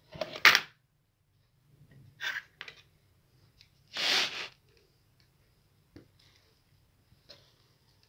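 Pot lid being handled on a steel cooking pan: a sharp clank about half a second in, a couple of lighter clinks, a short scrape about four seconds in, and a few small clicks.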